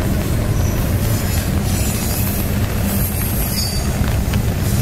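CSX double-stack intermodal freight train rolling past, its container wagons giving a steady rumble on the rails, with rain falling.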